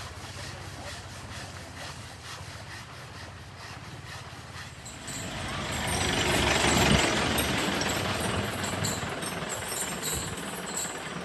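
A jeep's engine running as it drives past, swelling from about halfway through to its loudest a couple of seconds later, then easing off as it moves away; a steady low engine hum is there before it.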